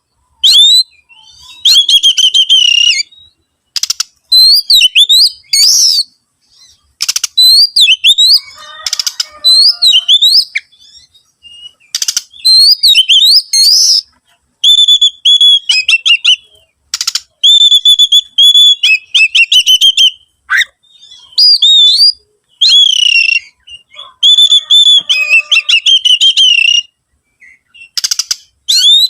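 Oriental magpie-robin singing loudly: varied whistled phrases that rise and fall, given in bursts of a second or two with short pauses, mixed with sharp harsh notes.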